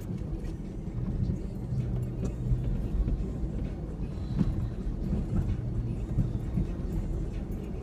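2003 Ford Ranger 4x4 driving slowly off-road, its engine running with a steady low rumble, with scattered knocks and rattles from the truck jolting over rough ground.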